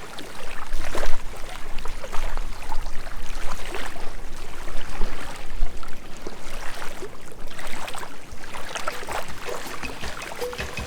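Small sea waves lapping and splashing at the shore, the wash swelling and falling irregularly. Background music comes back in near the end.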